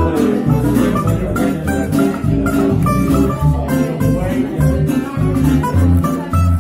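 Upright double bass played pizzicato, its deep plucked notes following one another in a steady walking line. Higher plucked notes from another string instrument play over it.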